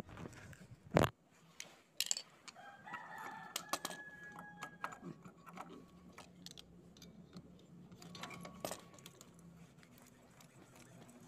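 Sharp clicks and light clatter of small fridge parts, a PTC relay and overload, being handled, the loudest about one and two seconds in. A faint pitched call sounds in the background from about three to five seconds in.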